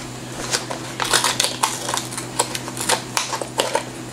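Clear plastic clamshell food container crackling and clicking as it is handled and its lid opened, an irregular run of sharp clicks over a steady low hum.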